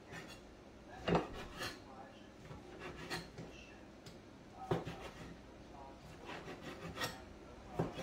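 Light knocks and rubbing sounds, about half a dozen short, scattered ones, as things are handled close to the microphone.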